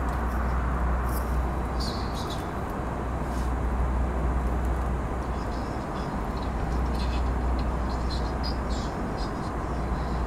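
Steady cabin noise of an Airbus A320 in flight: a low, even rumble of the jet engines and airflow heard from inside the cabin over the wing, with faint light ticks now and then.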